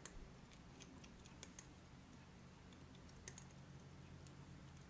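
Faint crisp clicks of a cat chewing and crunching a treat, a few irregular ticks at a time over a low room hum.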